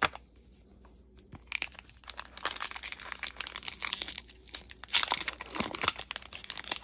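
Foil wrapper of a trading card pack crinkling and tearing as it is worked open by hand. A dense run of crackles starts about a second and a half in and is loudest around five seconds in.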